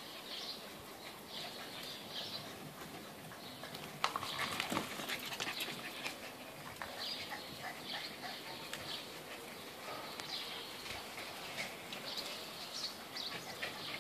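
Puppies' claws clicking and scuffling on terracotta floor tiles as they move about, busiest and loudest about four seconds in. Short high chirps recur in the background throughout.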